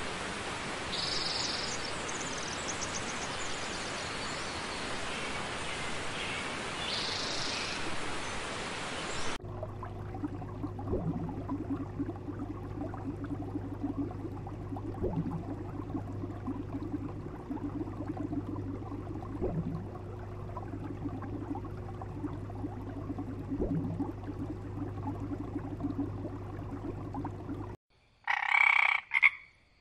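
A steady hiss of background noise with two faint, short high chirps gives way at a cut to a low steady hum with a pulsing drone and a soft knock every few seconds. Near the end a frog gives one short, loud croak, lasting about a second.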